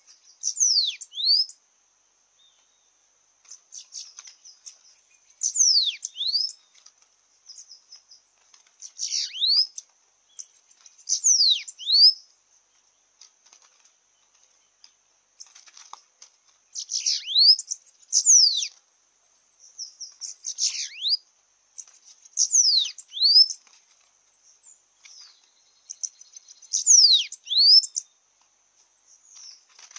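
Bananaquits calling at close range: sharp, high calls every two to three seconds, each mostly a pair of quick falling whistles, with a little wing fluttering, over a steady high insect trill.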